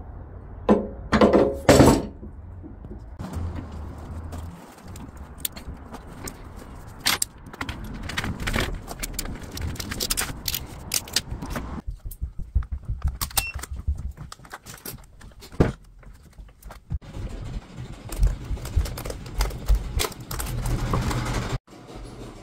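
Handling noise from a weathered wooden stick: a few loud knocks against a workbench in the first two seconds, then scattered clicks, scrapes and the crinkle of the clear plastic wrapped around it.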